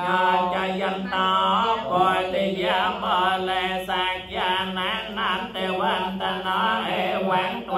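Buddhist paritta chanting in Pali: voices reciting in a steady chant over a held low reciting pitch.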